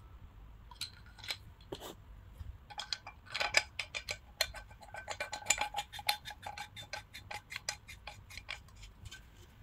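Detachable handle being fitted onto an Atomy ceramic non-stick frying pan: a few separate clicks and knocks, then a quick run of small sharp clicks, about six a second, as the end of the handle is turned to lock it, stopping shortly before the end.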